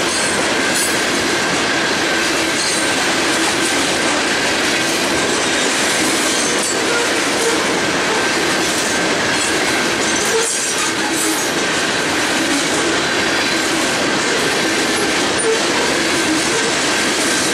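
Freight train of covered hopper cars rolling past: steady, loud noise of steel wheels on the rails, with a thin steady high tone over it.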